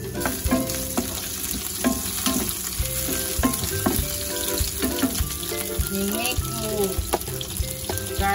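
Sliced onions sizzling in hot oil in a frying pan, stirred with a wooden spatula that taps against the pan now and then.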